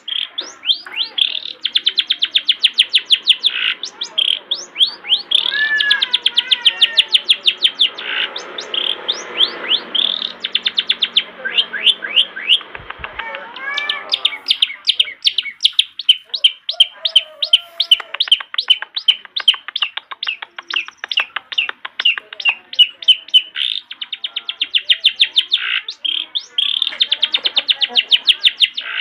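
Long-tailed shrike (cendet) singing in full voice: long runs of sharp, rapidly repeated chattering notes, several a second, broken now and then by short warbled phrases.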